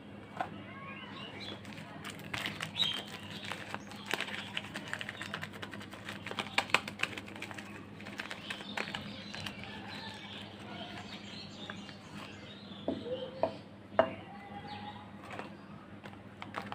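Soap bar packaging being unwrapped by hand: irregular crinkles and clicks of wrapper, with a few louder snaps, over a low steady hum.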